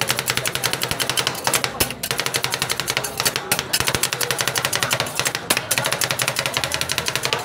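Two metal spatulas striking a steel cold plate in a fast, steady clatter of many strikes a second as strawberries are chopped into the ice cream base: the chopping and mixing stage of making rolled ice cream.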